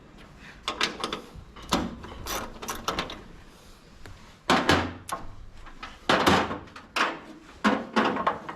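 Metal brackets and hardware clattering and knocking as they are handled and sorted, about a dozen sharp knocks of uneven strength with the heaviest clanks in the second half.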